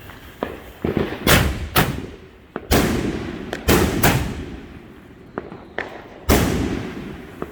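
Consumer aerial fireworks going off: a quick, uneven series of loud bangs, each dying away with an echoing tail, the strongest about a second in, near the middle and near the end.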